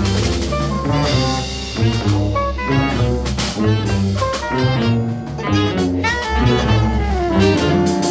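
Jazz ensemble of saxophones, trumpet, trombone, tuba, piano, guitar, double bass and drums playing together over a steady low didgeridoo drone.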